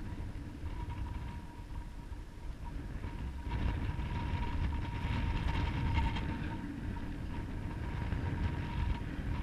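Wind buffeting the microphone over the rush of a riffled river current. It grows louder about three and a half seconds in, with a faint steady whine running through much of it.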